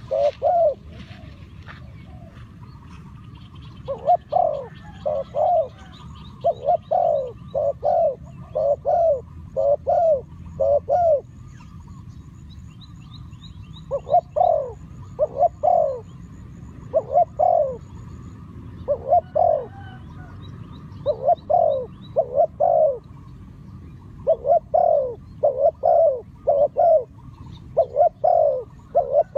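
A dove cooing over and over in short runs of two to four notes, with faint higher chirps of small birds behind.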